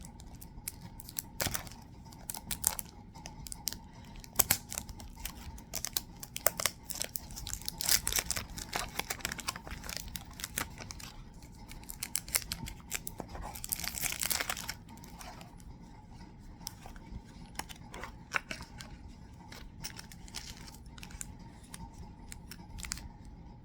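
Packaging being worked open by hand: crinkling, scratching and scattered clicks, with a longer tearing sound about two-thirds of the way through.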